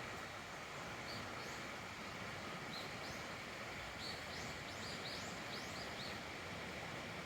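Outdoor ambience: a steady hiss with a small bird chirping repeatedly, short high notes that sweep quickly upward, from about a second in until about six seconds in.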